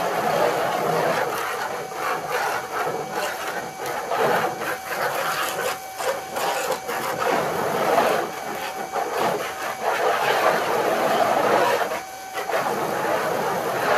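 Small electric pressure washer running, its jet hissing as it sprays wooden deck boards, over a steady motor hum. The hum and spray cut out briefly about six seconds in and again near the end.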